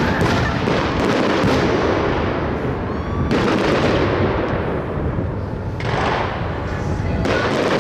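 Fireworks display: aerial shells bursting in a rapid, continuous barrage of bangs and crackling, with fresh sharp bursts about a second in, after three seconds, and near six and seven seconds.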